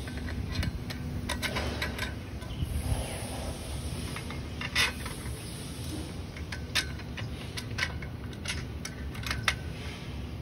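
Metal clinks and knocks from the steel tubes of a swing-chair frame being handled and fitted together, with sharper ones about five, seven and nine and a half seconds in, over steady low background noise.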